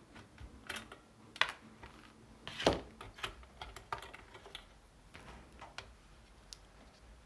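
Irregular clicks and clacks of a PC power supply unit's casing being handled, with one louder knock a little over two and a half seconds in.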